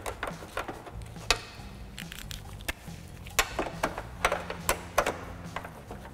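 Scattered light metallic clicks and taps of a 10 mm socket working on a door-handle retaining nut inside a car door.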